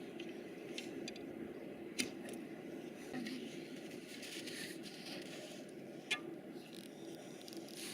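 Two sharp knocks from archery, about four seconds apart, over a steady low background noise.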